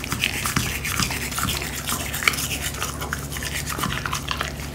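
Dog toothbrush scrubbing a dog's teeth: rapid, continuous scratchy back-and-forth strokes of stiff bristles.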